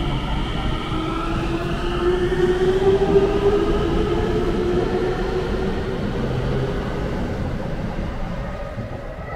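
Tsukuba Express electric train pulling out of the station, its traction motors whining in several tones that rise in pitch as it gathers speed, over wheel and rail rumble. The sound is loudest about three seconds in and fades as the train draws away.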